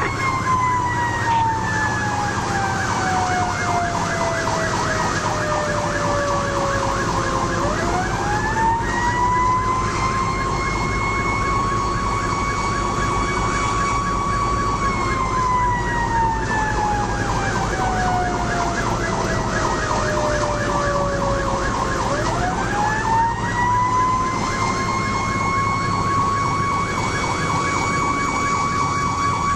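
Fire engine's siren, heard from inside the cab, winding slowly down in pitch and back up twice, with a faster pulsing siren tone beneath it. The truck's engine drones steadily underneath.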